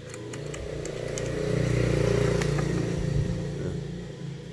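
An engine passing by outside, swelling to a peak about two seconds in and then fading away. A few light plastic clicks come from the chainsaw's air filter cover being handled.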